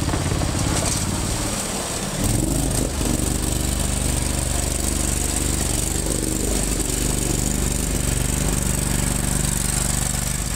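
Lifted off-road riding mower's engine running under load as it drives through a water-filled muddy ditch, water splashing around the tires. The engine note changes and gets louder about two seconds in.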